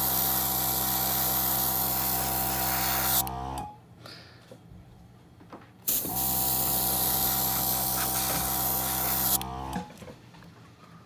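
Small airbrush compressor motor humming while the Master Airbrush G22 sprays with a high hiss of air. It cuts out about three and a half seconds in, the hiss stopping first and the motor winding down, then starts again abruptly about two seconds later and runs for about four seconds before stopping.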